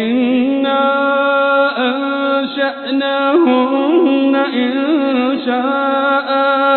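A man's voice reciting the Quran in melodic tajweed style, drawing out long sustained notes with ornamented pitch turns. The voice enters on a rising note at the start.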